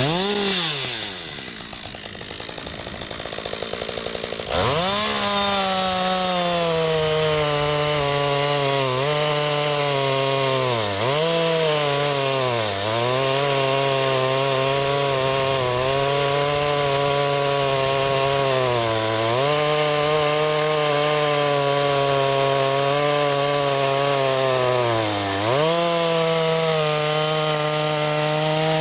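Husqvarna AutoTune two-stroke chainsaw: engine speed falls off at first, runs quieter for a few seconds, then is throttled up sharply about four and a half seconds in and held at high revs while cutting through a log, the pitch sagging briefly several times under load. The chain is blunt after a full tank of fuel, and the cut goes slowly.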